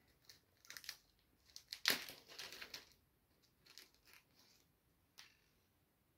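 A small plastic spare-parts bag crinkling as it is handled and opened. Near the end comes a light click as a tiny replacement gear drops onto the wooden tabletop.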